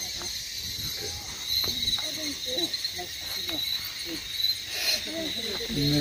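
The massed calling of a huge roosting flock of Amur falcons overhead: a steady, high-pitched din of countless overlapping calls, with faint human voices underneath.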